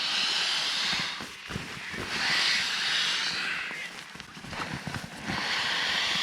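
Air rushing out of a pump sack through the valve into a Zempire inflatable sleeping mat as the sack is rolled down. There are three long rushes of air, the last starting about five seconds in, with the fabric bag rustling and crinkling between them.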